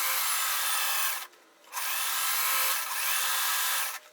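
Sewing machine running as it stitches a quilt strip seam. It stops briefly about a second in, then runs again until just before the end.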